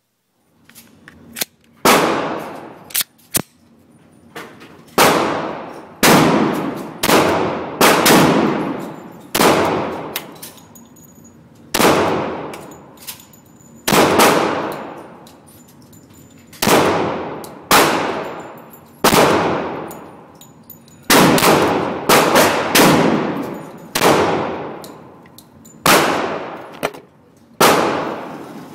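Glock 20 SF 10mm Auto pistol being fired: about twenty single shots spaced irregularly one to two seconds apart, each with a long echoing tail.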